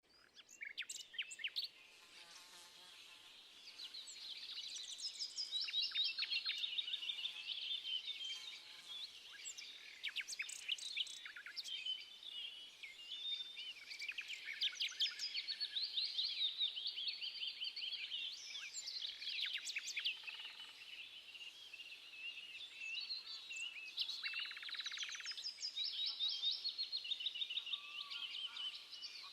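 A chorus of many small songbirds chirping and singing at once, a dense overlap of quick high chirps and trills that builds up over the first few seconds.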